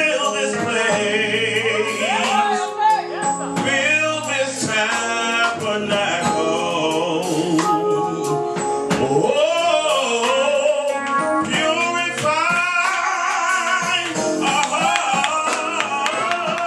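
Gospel worship song: vocalists singing with the band's instrumental backing.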